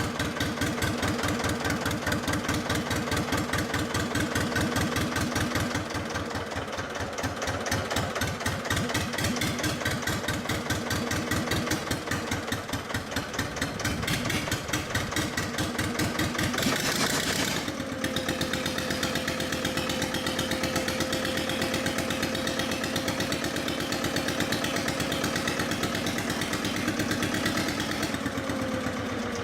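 Armstrong Siddeley AS2 diesel engine running steadily with an even, rapid firing beat. A short hiss comes about two-thirds of the way in, and after that a steady whine sits over the engine.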